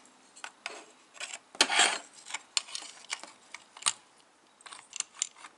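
Irregular light clicks and taps of small metal parts being handled on a workbench, with a brief scrape about a second and a half in.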